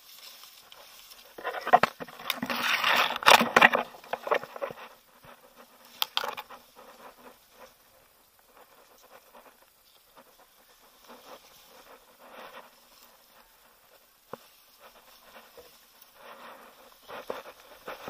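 Dry grass and brush rustling and crackling as someone pushes through it on foot, loudest for a few seconds near the start, then scattered light rustles and snaps.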